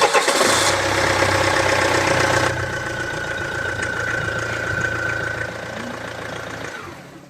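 Renault Trafic 2.5 dCi four-cylinder turbodiesel running just after starting, easing from the start-up flare into a steady idle about two and a half seconds in, then dying away near the end. The engine's crankshaft pulley (harmonic balancer) has been replaced, the cure for its metallic rattle.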